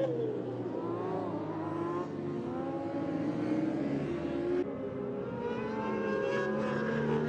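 Several racing sportbike engines running at high revs, the pitch rising and falling as the bikes accelerate, shift and pass. The sound changes abruptly about two seconds in and again just past the middle.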